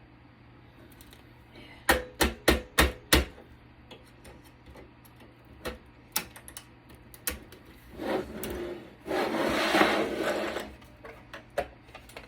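Five quick sharp knocks, then scattered clicks and a scraping rub of about two and a half seconds near the end, as a stuck part is worked loose inside a Cisco Catalyst switch being taken apart.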